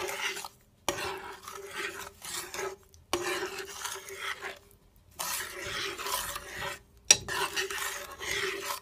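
Metal spoon stirring and scraping barbecue sauce in a pot, in repeated strokes of about a second each with short pauses between. A sharp clink of spoon on pot comes about seven seconds in.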